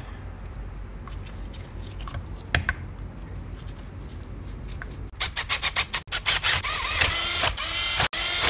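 A cordless electric screwdriver starts about five seconds in, driving the small bolts of the solenoid retaining plate on a ZF 6HP26 transmission's mechatronic unit. It runs in quick pulses, its whine rising and falling several times a second. Before it there are a few faint clicks of metal parts being handled.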